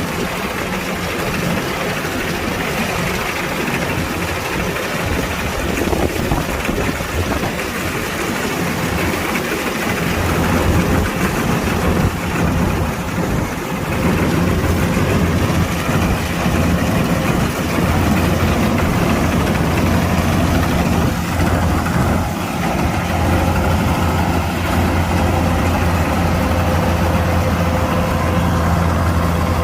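Kubota DC-105X combine harvester's diesel engine running steadily, growing louder about ten seconds in and holding that level.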